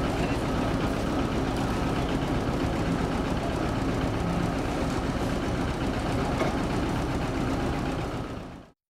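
Forklift engine running steadily at idle, with a faint steady hum over it. It cuts off suddenly near the end.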